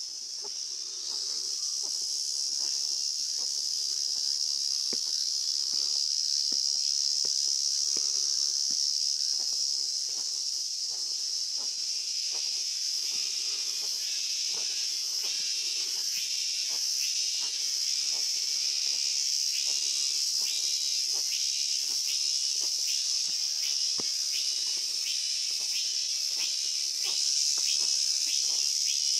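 Summer forest insects, most likely cicadas, keep up a steady high shrill drone. About twelve seconds in, a second insect chorus joins with a lower call that pulses a little more than once a second. Light footsteps on a stone path tap along under it.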